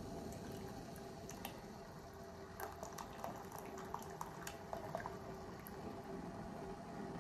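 Liquid snail soup base squeezed from a plastic sachet into a pot of hot water: dripping and small splashes, with a cluster of little clicks between about two and five seconds in, over a faint steady hum.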